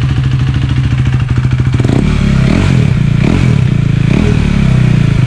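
KTM Duke 390's single-cylinder engine running loud through a freshly fitted Akrapovic R1M-style aftermarket exhaust. It idles steadily, then takes a few quick throttle blips from about two seconds in.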